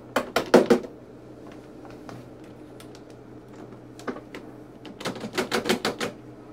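Rubber mallet tapping plastic push-in nails into the cart's plastic hood to secure it: a quick burst of taps right at the start, a few faint knocks, then a longer, rapid run of about ten taps from about five seconds in.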